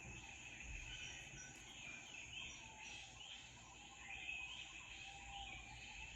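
Faint recorded jungle ambience: a steady chorus of insects with short chirping bird calls repeating over it.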